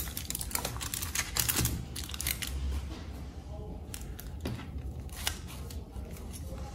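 Light handling sounds as a cloth towel is wrapped around a metal mousse ring on a foil-covered cake board on a wooden table: a quick run of small clicks and taps in the first couple of seconds, then a few scattered taps, over a low steady hum.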